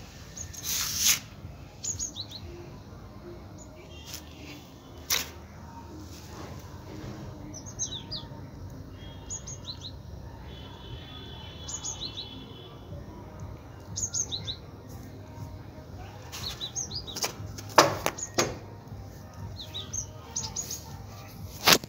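Small birds chirping in short repeated high calls, with a brief trill around the middle. A few loud sharp clicks or knocks stand out above a steady low background rumble.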